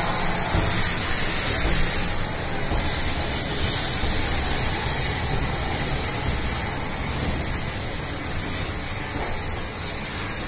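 Steam hissing loudly from Southern Railway West Country class Pacific 34027 Taw Valley and its train as it moves slowly along the platform, over a low rumble. The hiss eases about two seconds in, and the sound slowly fades as the coaches pass.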